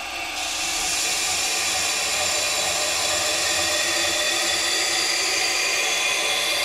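Variable-speed belt grinder running with a 120-grit belt while a 1095 steel knife blade is ground against it to form the cutting edge. The steady grinding hiss comes in about a third of a second in and then holds even.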